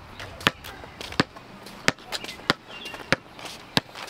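Basketball being dribbled on a concrete sidewalk: six sharp bounces at a steady pace, about one and a half a second.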